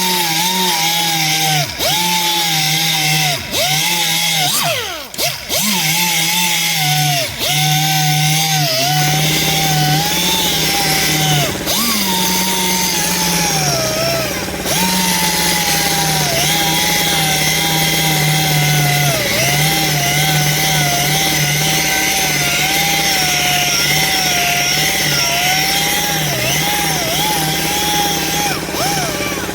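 Mini dual-action sander wet-sanding curb rash on an aluminum wheel with 600-grit paper: a steady high whine whose pitch keeps dipping and recovering as the pad bears on the rim. A low hum joins in under it about nine seconds in.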